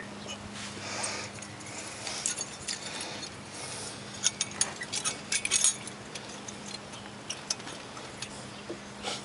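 Light metallic clicks and rattles as a new front brake pad is handled and fitted into the caliper bracket, with a quick run of clicks around the middle.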